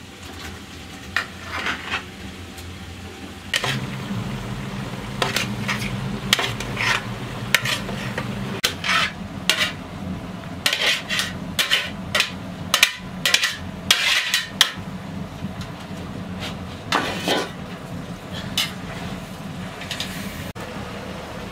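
A metal ladle scraping and clinking against a steel cooking pot and a metal tray as mushrooms are tipped into the pot and stirred: a long irregular run of short scrapes and clanks.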